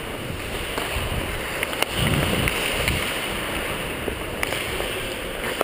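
Hockey skate blades scraping and gliding on ice, with wind rushing over a player-worn camera's microphone and a few sharp clicks on the ice.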